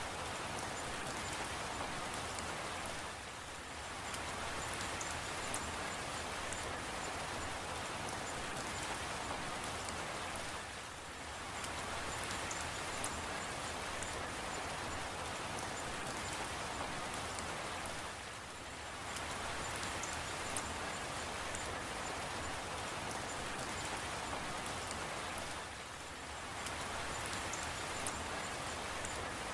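Steady rain falling, an even hiss of drops with brief dips in loudness about every seven and a half seconds.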